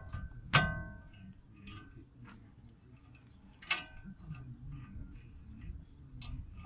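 Steel spanners and a socket wrench clinking against each other and the hub: two sharp ringing metal clinks, the first about half a second in and loudest, the second a little past the middle, with lighter irregular ticks of tools being handled in between.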